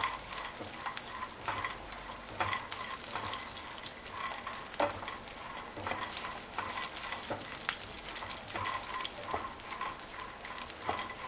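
Peanuts and garlic cloves being dry-roasted in a little oil in a nonstick kadhai: a soft sizzle, with repeated scrapes and clicks as a silicone spatula pushes the nuts around the pan.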